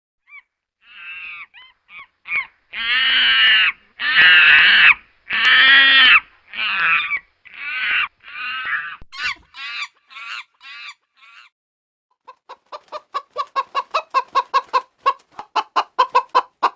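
Chickens calling: a string of loud, pitched calls, then, after a short pause, a quick run of short clucks about five a second that grow louder.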